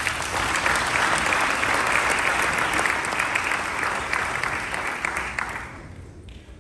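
Audience applauding, then dying away near the end.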